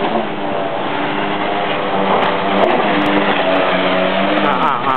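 Sea-Doo personal watercraft engine running hard as the craft speeds past, a steady high-revving drone whose pitch swings up and down near the end as it turns.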